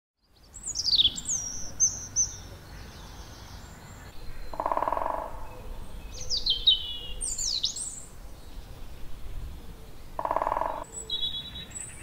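Woodland songbirds singing: repeated high, clear phrases that slide downward in pitch, over a low steady background. Twice, in the middle and near the end, a lower, shorter sound of under a second cuts in.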